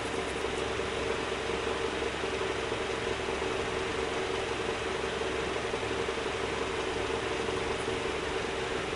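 Wood lathe running steadily with a pen blank mounted between centres: an even mechanical hum with a steady mid-pitched tone over a hiss.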